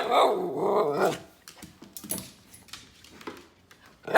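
Miniature poodle giving one drawn-out, wavering bark-howl lasting about a second, demanding a treat; a few faint clicks follow.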